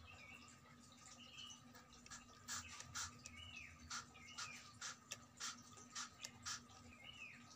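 Trigger spray bottle pumped about nine times in quick succession, short hissing puffs of mist, starting about two and a half seconds in. A small bird chirps repeatedly in the background.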